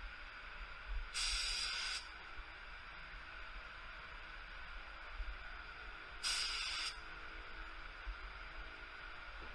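ITALCO Shine 1 gravity-feed HVLP spray gun spraying sealer at 29 psi in two short bursts of hissing air, about a second in and again about six seconds in, as it lays test spray patterns. A steady fainter hiss runs underneath.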